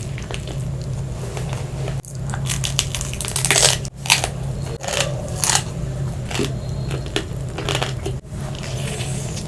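Close-miked eating: crunching, biting and tearing of food in irregular crackly bursts that begin about two seconds in, loudest a little before the middle, over a steady low hum.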